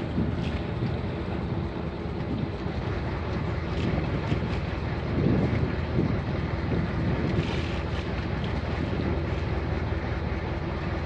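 Small fishing boat at sea with a steady low hum under it and wind buffeting the microphone, the noise swelling now and then.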